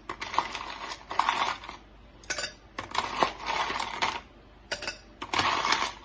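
Ice cubes dropped a few at a time into a cup, clinking and clattering against it and each other in about half a dozen separate bursts.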